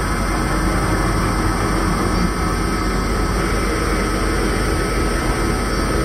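Steady, even rumbling drone of noise, engine- or train-like, with no beat or melody and a faint steady high tone running through it, playing as the dance's soundtrack.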